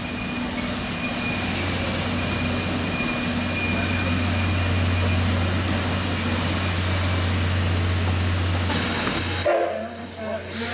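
JNR Class D51 2-8-2 steam locomotive moving slowly: a steady hiss of steam over a low, even drone. The sound drops off abruptly about nine and a half seconds in.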